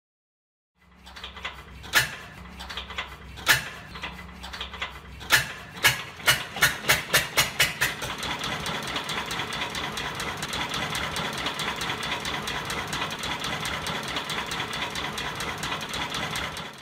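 Miniature model tractor engine driving a toy sugarcane crusher through string belts. A few scattered clicks, then clicks that come faster and faster, settling about halfway in into a steady, fast ticking whir.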